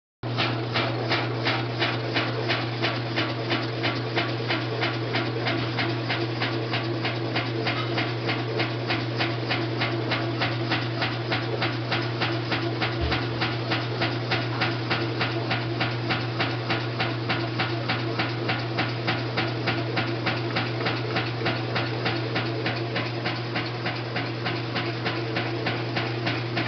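Kenmore Elite washing machine spinning, with a steady low hum and a loud rhythmic pulsing noise that repeats about three times a second. This is the weird spin-cycle noise whose cause the owner does not know.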